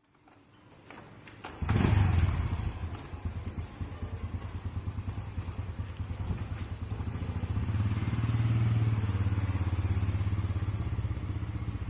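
A motorcycle engine comes in suddenly about one and a half seconds in and keeps running steadily, getting a little louder a few seconds later.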